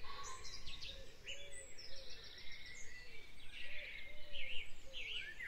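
Several birds singing and chirping together, with quick high chirps and trills over a lower repeated swooping call, against a faint steady background hiss.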